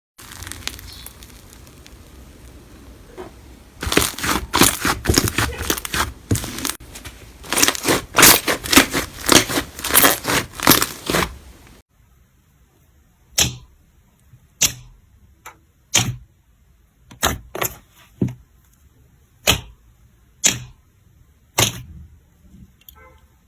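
Slime being squeezed and pressed by hand, giving a dense run of crackling and clicking. About halfway through it changes to separate sharp pops, roughly one a second.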